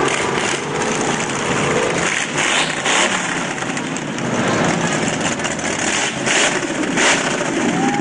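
Parade vehicles passing close by. A quad ATV's small engine runs and fades away over the first couple of seconds, then a pickup truck's engine comes closer, with a few brief noisy rushes along the way.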